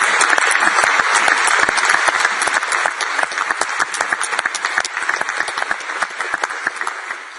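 Applause from the members of a parliamentary chamber: a dense, sustained clapping that thins and fades away near the end.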